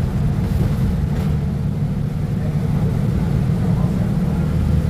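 Diesel engine of a Mercedes-Benz O500U city bus running with a steady low rumble. Near the end it settles onto a steadier, deeper tone.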